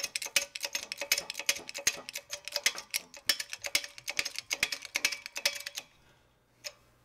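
Rapid, irregular sharp clicks and creaks as a shop press forces a new ball bearing through a wooden block into a Volvo Penta seawater pump housing. The clicking stops about six seconds in, and a single soft knock follows.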